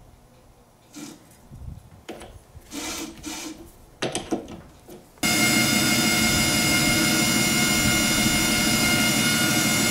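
Light knocks and rubs as a small aluminum part is set into a metal lathe's chuck jaws by hand. About five seconds in, the lathe starts running steadily with a whine of several steady tones, while a carbide insert tool faces the spinning 6061 aluminum part.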